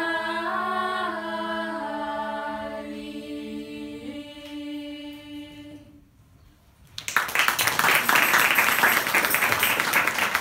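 Girls' a cappella choir singing a traditional Serbian song, holding its final chord in several voices, with the parts moving about four seconds in before the chord dies away. About a second later the audience breaks into applause.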